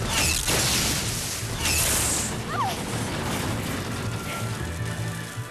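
Dramatic background music with two short, loud blast sound effects about a second and a half apart near the start.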